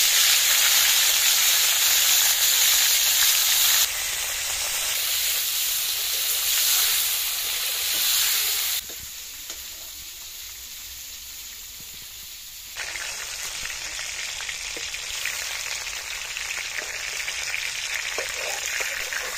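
Snakehead (shol) fish steaks frying in hot oil in an iron kadai: a loud, steady sizzle. It drops abruptly about 4 s and again about 9 s in, then grows louder again about 13 s in.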